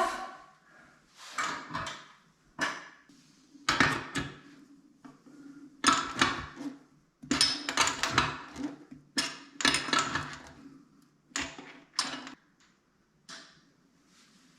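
A string of short knocks, clatters and scrapes as a heavy bathroom sink and its fittings are handled and shifted into place, coming in clusters and thinning out near the end.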